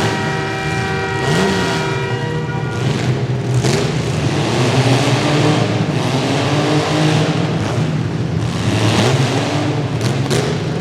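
Engines of compact demolition derby cars revving, their pitch rising and falling. A steady pitched tone sounds for the first couple of seconds, and a few sharp bangs of car-on-car impacts come near the end.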